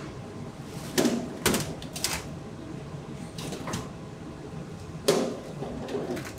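Perforated metal trays handled and stacked by hand, clanking against each other in sharp metallic knocks: three close together about a second in, a loud one about five seconds in. A steady machine hum runs underneath.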